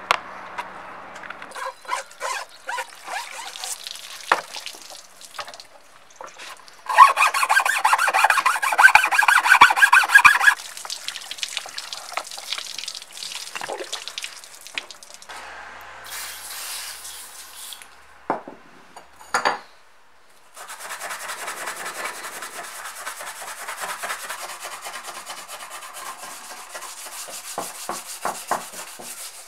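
Metal machine parts being cleaned by hand, heard as a string of short brushing and scraping passages, with a loud stretch of fast scrubbing from about 7 to 10 seconds in. Two sharp knocks come around two-thirds of the way through, and steady rubbing of a scouring pad on a small metal plate fills the last third.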